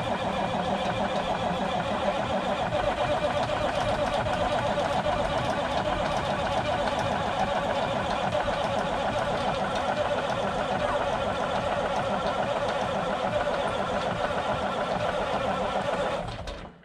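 Cummins Big Cam diesel of a 1991 International 9670 Eagle cab-over semi on a cold start with starting fluid, turning over and firing roughly in one steady, loud, rapid racket that cuts off near the end. The engine is too cold to keep running.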